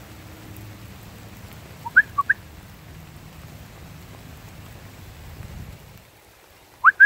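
Short, clear whistled notes, the loudest sounds here: a quick group of three about two seconds in, and a fast run of five right at the end. Under them is a low steady rumble that stops about a second before the end.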